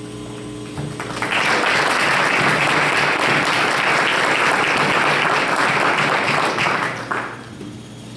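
Group of people applauding, starting about a second in, holding steady for about six seconds and dying away near the end.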